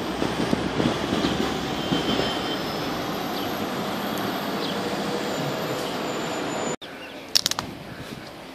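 City street traffic noise with a light rail tram passing close by. About seven seconds in, the sound cuts off abruptly to a much quieter outdoor background, broken by a few sharp clicks.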